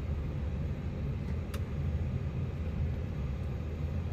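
Steady low rumble of an airliner cockpit's background noise, with a single sharp click about one and a half seconds in.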